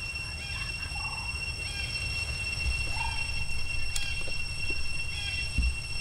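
Short chirping animal calls repeating about once a second over a steady high-pitched drone, with a low rumble underneath.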